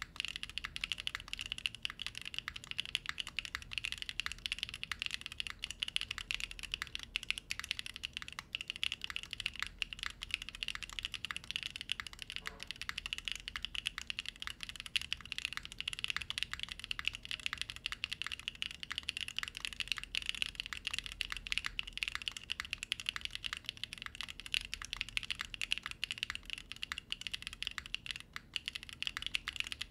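Steady, fast typing on a Freebird TKL custom mechanical keyboard: gasket-mounted on a POM plate, with lubed Pochi switches and GMK doubleshot ABS keycaps. The keystrokes come as a dense, unbroken run of crisp clacks.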